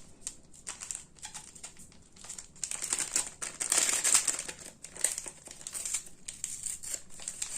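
Plastic packaging crinkling and rustling in irregular crackles while ingredients are handled, loudest about halfway through.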